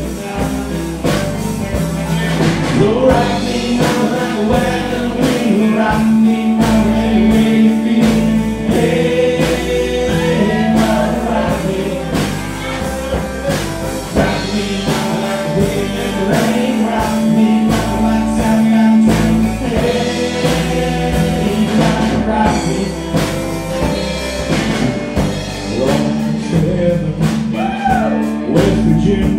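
Live country band playing: electric guitars, bass and drums keeping a steady beat under sung vocals.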